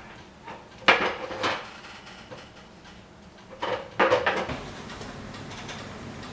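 Two short bursts of clattering dishes and cutlery: hard clinks and knocks about a second in, and again around four seconds in.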